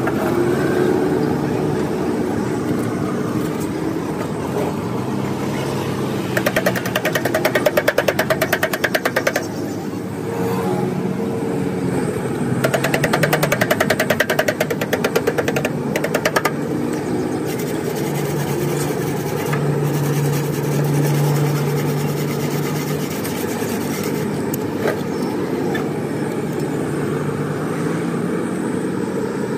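Fast, repeated scraping of a metal hand tool worked along a radiator core, in two stretches of a few seconds each. A steady machine drone runs underneath.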